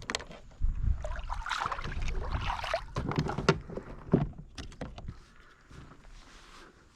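Knocks, taps and rustling of handling gear and a caught fish on a fishing kayak, busiest in the first few seconds and dying down over the last two.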